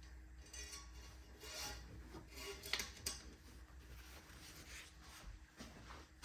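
Faint rubbing and scraping handling noises, with two light clicks about three seconds in.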